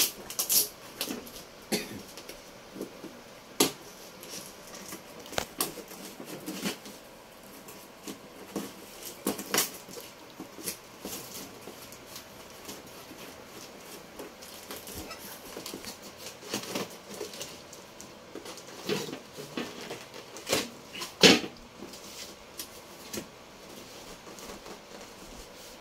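Scissors cutting and scraping through packing tape on a cardboard box, with irregular snips, scrapes and crinkles of tape and cardboard, then the box flaps being pulled open. The loudest crackle comes about three quarters of the way through.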